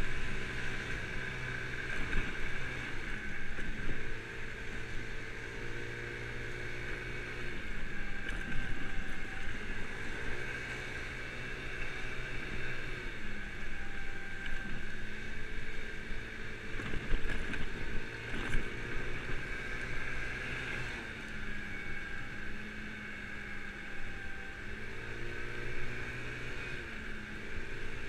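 Kymco Agility 50cc scooter engine, heard from the rider's seat, revving up and easing off again about five times as it accelerates and backs off the throttle. A steady hiss of wind and tyres on the wet road runs underneath.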